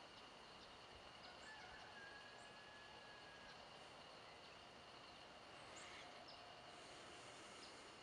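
Faint dawn countryside ambience: a steady high insect drone, with a few short bird chirps scattered through it.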